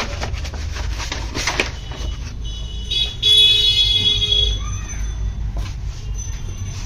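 A steady low rumble of background noise, with a shrill, horn-like tone sounding for about two seconds midway, the loudest thing heard.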